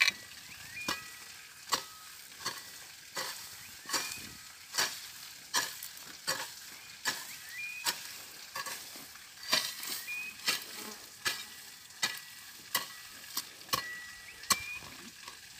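A broad-bladed hoe chopping into weedy soil in a steady rhythm, a little more than one strike a second. Each strike is a short chop with a scrape as the blade tears out grass and roots.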